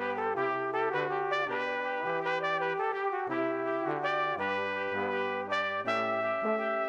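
Background music: a brass-led tune, with a melody over a bass line moving in steps about every half second.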